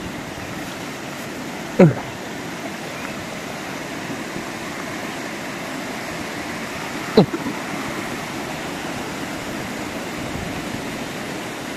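Mountain stream rushing steadily over boulders and rocks. Twice, about five seconds apart, a short sound sweeps quickly down in pitch over it.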